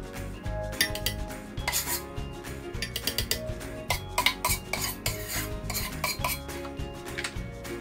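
A metal spoon clinking and scraping against a stainless steel pot while cooked mung beans are scooped out, in many short knocks. Soft background music plays underneath.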